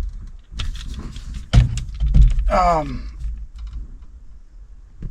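A run of sharp clicks and knocks with low, rumbling handling thumps about halfway through, and a brief vocal sound just after.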